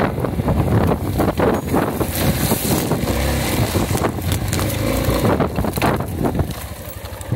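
Yamaha XG250 Tricker's single-cylinder engine running as the bike pushes through tall dry grass, the stalks swishing and slapping against the handlebars and microphone, with wind buffeting the mic. The engine note rises and falls, and the sound grows quieter near the end.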